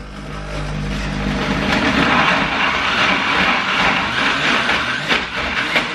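Bestek 1000 W personal smoothie blender running at full power, blending fruit, vegetables and soy milk into a smoothie. The motor comes up to speed within the first second and then runs steadily, the machine shaking hard on the worktop.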